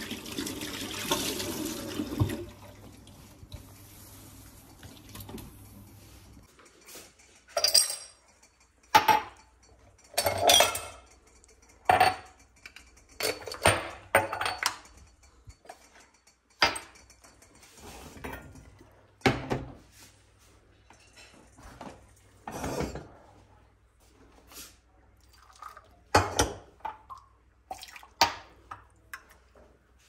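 Water runs from a tap for the first couple of seconds and fades away. Then dishes, pans and glasses clink and clatter as they are handled and set down, more than a dozen separate knocks at irregular intervals.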